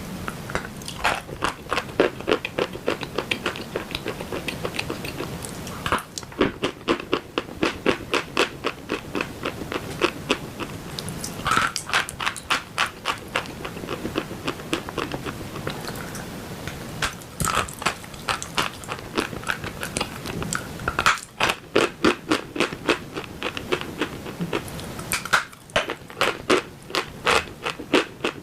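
A person biting and chewing dry chalk close to the microphone: runs of rapid, crisp crunches, broken by short pauses several times.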